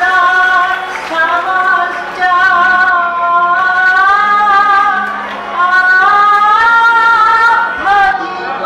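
A woman singing a slow song solo, holding long notes that slide up and down in pitch, with short breaks between phrases.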